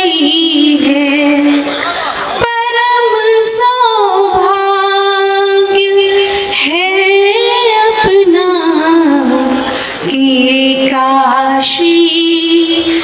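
A woman sings a Hindi poem solo into a stage microphone, in phrases of long held notes with a wavering pitch and short breaths between them.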